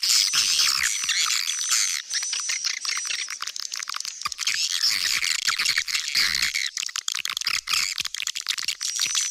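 Swiftlet call recording, played as a lure for nesting swiftlets: dense, rapid twittering and clicking chirps of many swiftlets. A thin high whistle slides up and repeats about once a second in the first few seconds.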